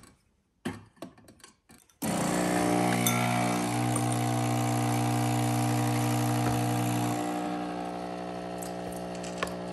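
A Nespresso espresso machine's pump starts with a sudden buzz about two seconds in and runs steadily as it brews espresso. It drops in tone and gets a little quieter about seven seconds in. A few light clicks and knocks come before it starts.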